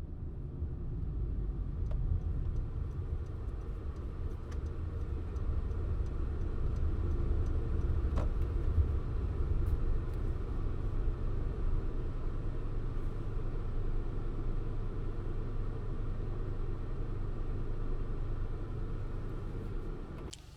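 Honda N-VAN kei van driving: a steady low rumble of engine and road noise.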